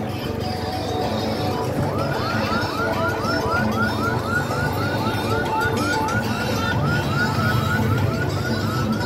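Electronic siren sounding in a fast yelp, a rapid run of short rising whoops at about four a second, starting about two seconds in over steady road and riding noise.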